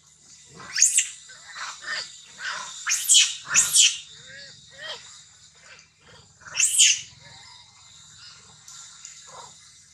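Baby long-tailed macaque crying in distress: a series of short, high-pitched shrieks, loudest about a second in, twice around three to four seconds in, and again near seven seconds, with softer squeaks between.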